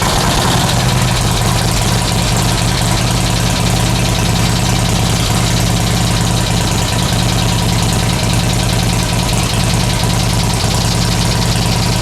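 2005 Harley-Davidson Road King's Twin Cam 88 V-twin idling steadily just after starting. It is running on a replacement ECM that has been synchronised to the bike, which cures its crank-but-no-start fault.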